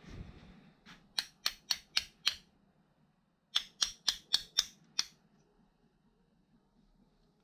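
Two runs of sharp clicks or light knocks, five and then six, about four a second, with a pause of about a second between the runs.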